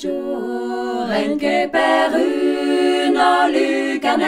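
A cappella choir singing held chords, several voices moving to new notes about once a second.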